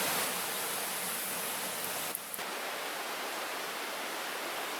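A small woodland creek running: a steady rush of flowing water, dipping for a moment about two seconds in.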